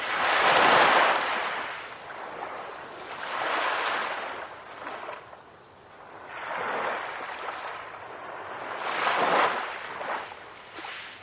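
Ocean waves washing onto a shore: four swells of surf, each rising and falling, one about every three seconds, the first the loudest.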